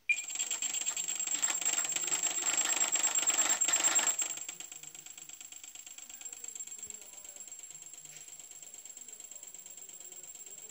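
HobbyKing Skipper model's motor starting abruptly and running with a fast, rattling whine. It runs loud for about four seconds, then is throttled back and runs on more quietly, still rattling: the motor is bad.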